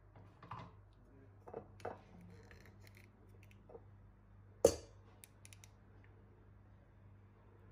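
Kitchen handling of an olive oil bottle over a stainless steel bowl: a few soft knocks in the first two seconds, then one sharp click a little past halfway, followed by a few small ticks.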